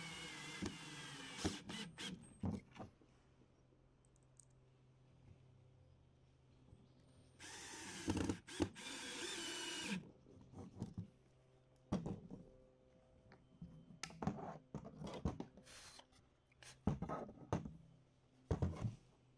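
Ryobi cordless drill driving screws into a wooden board: a brief run at the start and a longer run of about two and a half seconds around eight seconds in. Between and after the runs come scattered clicks and knocks of the drill and board being handled.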